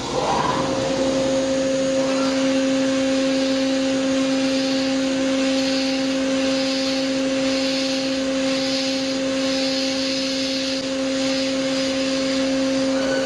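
CNC milling machine's spindle and end mill cutting into a metal block with a steady two-toned whine, starting about half a second in, over a hiss that swells and fades regularly about once a second as the tool works through the cut.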